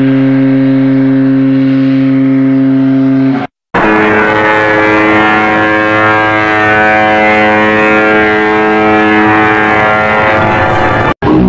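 Ship's whistle for MS Stockholm sounding one long, steady blast that cuts off abruptly about three and a half seconds in. After a brief silence, the whistle for SS Leonardo da Vinci sounds a single long, steady blast of about seven seconds, a chord of many tones, which also cuts off sharply near the end.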